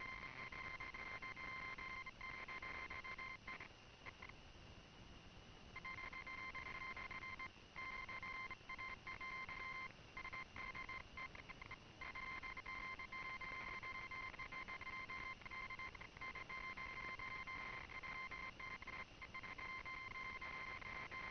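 Steady high-pitched electronic tone with a second tone an octave above it, over faint hiss. It drops out for about two seconds around four seconds in, and for many short moments after that.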